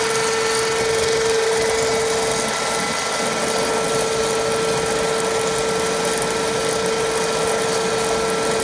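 Dazzini TCI260VH chain saw running steadily with its chain cutting a vertical slot into the ground: a constant whine over a harsh, hissing grind.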